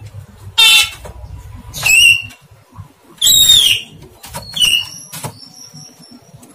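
Javan myna (jalak kebo) giving four loud, short calls about a second and a half apart, each a stack of tones, some gliding down in pitch. These are its indistinct attempts at talking.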